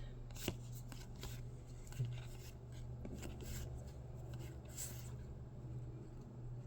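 Foil Pokémon card booster pack being worked open by hand: faint crinkling and rustling with a few small clicks, over a steady low hum.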